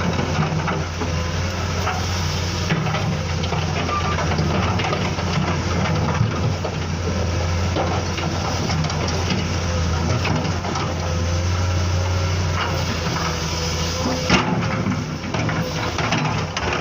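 Miniature RC construction models at work: a steady low diesel-like engine drone, with scattered clicks and scraping and a sharp knock about 14 seconds in.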